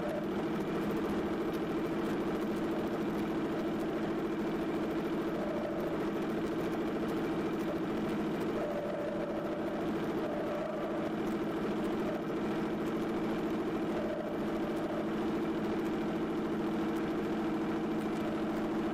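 John Deere 770 compact tractor's three-cylinder diesel engine running steadily, heard from right on the hood as the tractor drives over snow.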